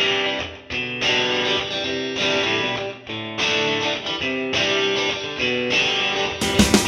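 Background music led by guitar: phrases of plucked notes with a regular rhythm, and drum hits coming in near the end.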